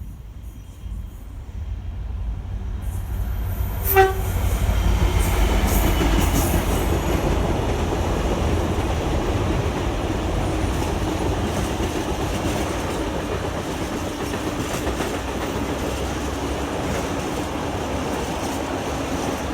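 DRS Class 66 diesel locomotive 66423 gives one short single-tone horn blast about four seconds in, then passes with its two-stroke diesel engine running and a train of wagons rumbling and clattering behind it. The noise builds to its loudest just after the horn and slowly fades.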